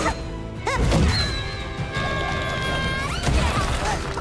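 Animated-film action score with crash and thud effects; about a second in, a chord of high notes is held for roughly two seconds before the busy action sounds return.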